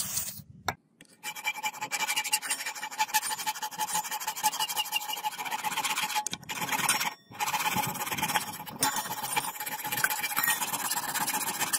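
Hand file rasping on the steel of a sword blank's tang shoulder, metal scraping on metal with a steady ringing tone. It starts about a second in and goes on in continuous strokes, with two short breaks a little past the middle.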